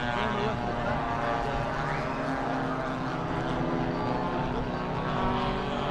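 Propeller engines of several radio-controlled model warbird airplanes running together in flight, a steady hum of several overlapping engine tones.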